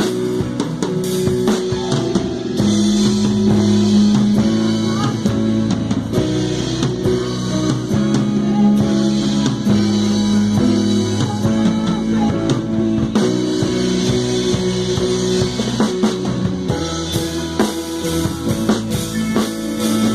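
Rock-style worship band playing an instrumental passage: drum kit, electric guitars, bass and keyboard, with sustained chords over a steady drum beat.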